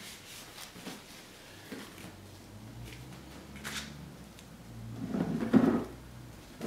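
Light handling noises on a work table: a single click a little after three seconds in, then a short cluster of knocks and rubbing about five seconds in.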